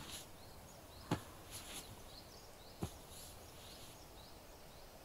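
Faint close-up massage sounds: soft rubbing and pressing, with two short thumps about a second in and just under three seconds in. Faint chirping runs in the background.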